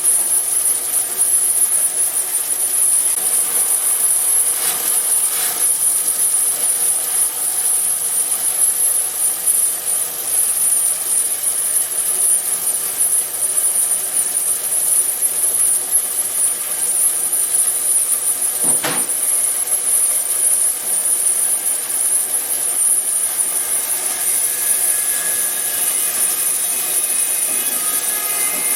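A 36-inch resaw band saw, driven by a 3 hp single-phase motor through a jackshaft, runs steadily with its blade sawing through wood. There is a loud, constant high hiss and a couple of brief knocks, at about five seconds and again near nineteen seconds.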